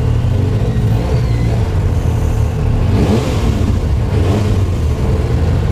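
Supercharged Yamaha YXZ1000R side-by-side's three-cylinder engine running steadily at low trail speed, heard from the driver's seat. Its pitch rises and falls twice about three and four seconds in.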